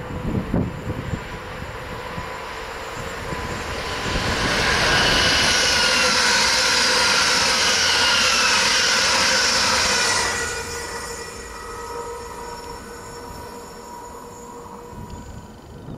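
A passenger train passing at speed. The rush of wheels on rail builds, is loud from about four seconds in with a few falling whines, then drops away after about ten seconds and fades.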